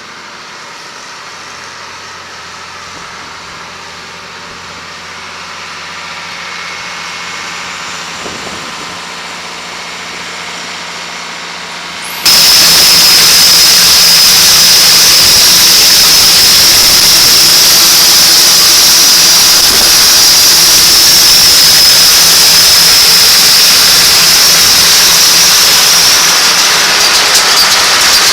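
Farm machinery engine running steadily. About twelve seconds in, the sound abruptly becomes much louder: a steady, loud mechanical noise with a high whine.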